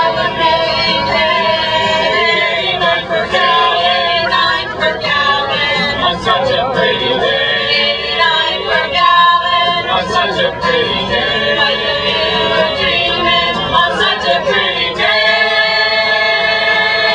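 A cappella vocal group singing in harmony, several voices together, settling into a long held chord in the last couple of seconds.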